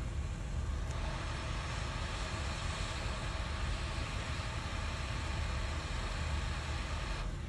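Hot air rework station blowing a steady hiss of air over a circuit board, with a low fan rumble underneath; the hiss grows louder about a second in and drops back near the end.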